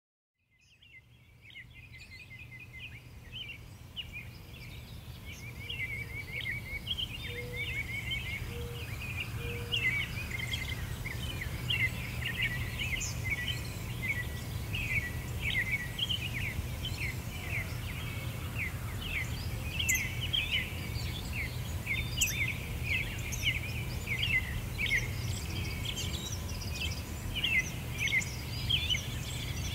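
A chorus of small birds chirping rapidly and continuously over a steady low rumble, fading in from silence over the first few seconds.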